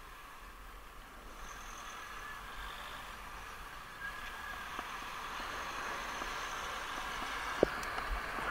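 Steady rushing road and traffic noise heard from a moving bicycle, growing gradually louder as the ride goes on. A single sharp knock near the end.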